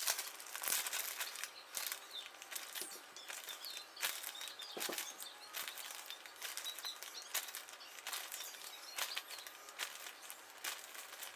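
Faint, irregular rustling and soft taps of a plastic zip-top bag being handled while chicken wings are tossed in flour.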